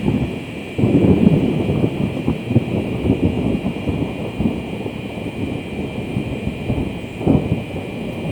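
Rolling thunder rumbling in surges, a strong one starting about a second in and another near the end, over a steady, high buzzing chorus of cicadas.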